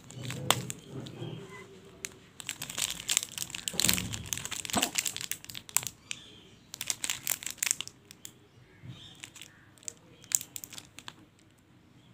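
Sealed Cadbury Perk chocolate bar wrappers crinkling and crackling as they are handled and turned over, in irregular bursts that are busiest from about two and a half to eight seconds in.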